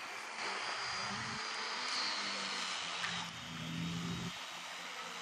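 Water rushing past the hull of a sailing ship under way, a steady hiss. A low hum comes and goes underneath.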